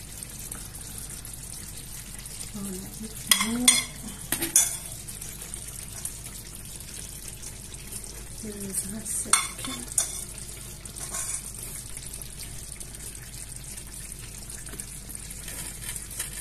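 Metal spoon clinking and scraping against an earthenware tagine dish while prunes and raisins are spread over the stew, with sharp clinks about three to four seconds in and again around nine to ten seconds. A steady sizzling hiss from the hot, freshly cooked tagine runs underneath.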